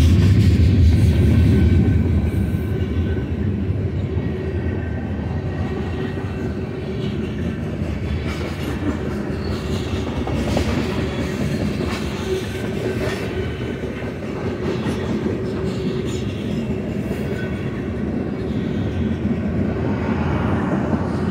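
Freight cars of a long BNSF manifest train rolling past: a steady rumble of steel wheels on the rails with repeated clicks as wheels cross rail joints. It is louder for the first couple of seconds, then settles to an even level.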